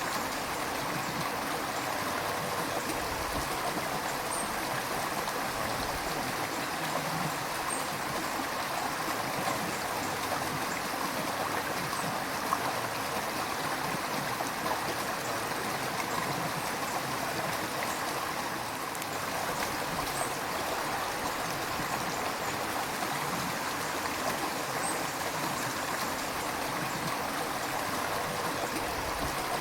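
River water flowing steadily over stones, an even rush with light gurgling.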